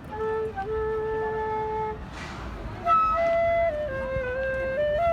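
A flute playing a slow melody of long held notes that step up and down in pitch, with a short breathy rush of air about two seconds in.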